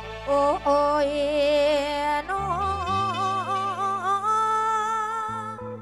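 Mor lam band music: a wavering melodic line with strong vibrato over a held low chord. The chord changes about two and a half seconds in, and the low notes drop out near the end.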